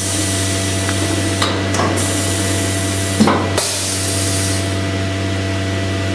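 CNC router machinery and dust extraction running: a steady hum under a loud hiss of air. The hiss cuts out briefly twice, about one and a half and three seconds in, with a sharp knock at the second break.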